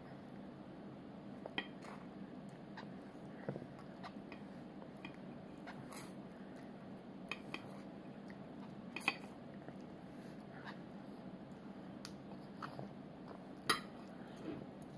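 Small fork clicking and scraping against a plastic plate now and then, with soft chewing, over a steady low hum. The sharpest clicks come about nine seconds in and again near the end.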